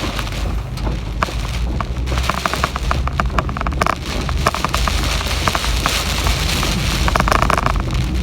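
Typhoon rainstorm: rain spattering in dense crackling patter over a steady low rumble of wind on the microphone, the spatter thickest around the middle and again near the end.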